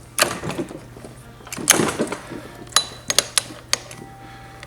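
Yamaha RD350 gearbox being shifted by hand on the bench, with the shift drum and forks sliding the gears down a ratio. Several sharp metallic clicks and clacks, a few ringing briefly. The newly rebuilt box is being checked through the gears.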